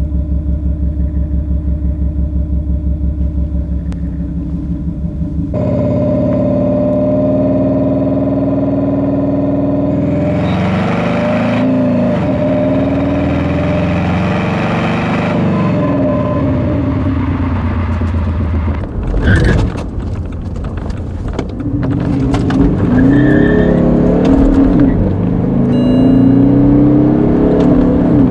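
BMW car engine running low and steady at first, then rising and falling in pitch as the car is driven and accelerated. A broad rush of noise about ten seconds in lasts a few seconds, and there is a short thump about nineteen seconds in.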